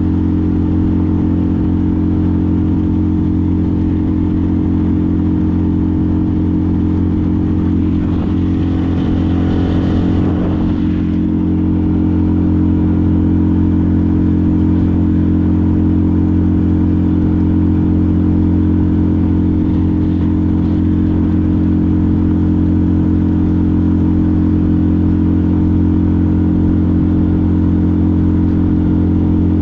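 A small boat's outboard motor running steadily at a constant cruising speed, with a brief rush of noise about nine to eleven seconds in.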